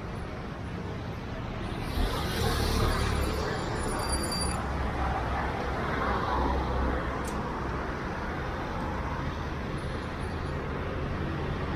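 Steady street ambience: a continuous low rumble of road traffic with no distinct single event.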